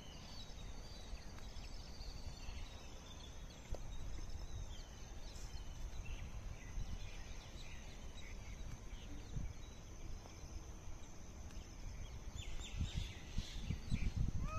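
Outdoor ambience of assorted birds chirping and calling, over a steady high-pitched tone and a low rumble of handling noise on a phone's microphone. Near the end comes a flurry of chirps and a few low thumps.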